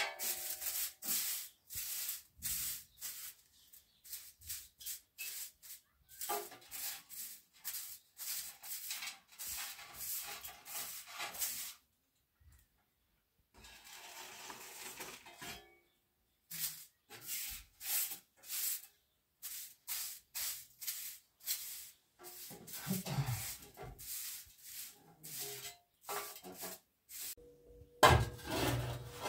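Quick rasping strokes made by hand, several a second, in runs broken by short pauses. Near the end comes a louder, deeper knocking.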